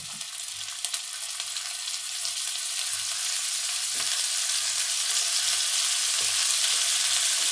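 Hot oil sizzling in a wok with chopped garlic as pieces of naem (Thai sour fermented pork) are crumbled in, the sizzle growing gradually louder as more pork goes in.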